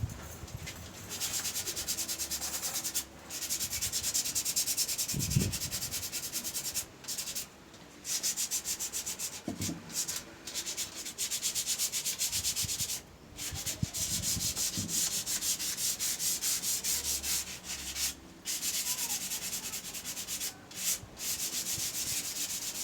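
Sandpaper, 120 grit, rubbed by hand over the sealer coat on a wooden tabletop: quick back-and-forth scratching strokes in runs of a few seconds with short pauses between, smoothing the sealer ready for varnish.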